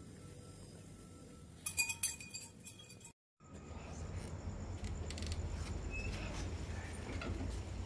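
A brief run of metallic clinks and jingles about two seconds in, then after a sudden break, a steady low rumble of background noise.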